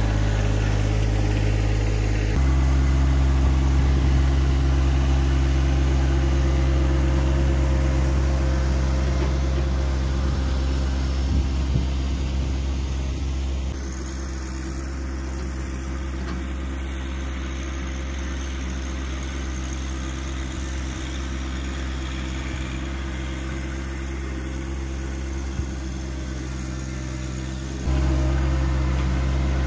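John Deere compact tractor's three-cylinder diesel engine running steadily as it pulls a box blade across the plot. It grows fainter about halfway through as the tractor moves off, and louder again near the end as it comes back close.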